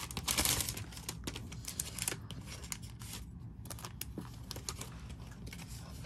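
Paper and packaging being handled: rustling and crinkling with many small clicks and taps, busiest and loudest in the first second.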